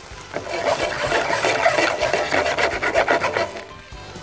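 Rapid, continuous scraping and rubbing of a spatula and frying pan being worked on an electric hot plate as the flatbread is loosened, lasting about three seconds and stopping shortly before the end.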